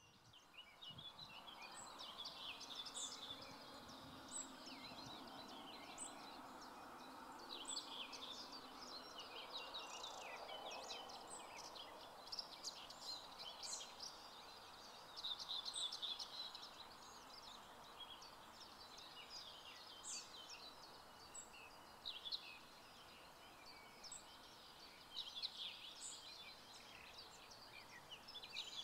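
Morning chorus of several small songbirds chirping and trilling in quick short phrases, over a faint steady background rush that fades somewhat after the first few seconds.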